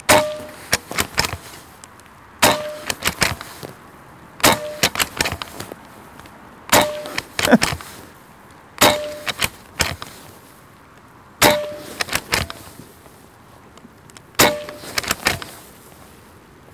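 A Hatsan Flash .22 PCP air rifle with an integral moderator firing seven shots, one every two to three seconds. Each is a sharp pop followed by a brief ringing tone and a few quieter clicks.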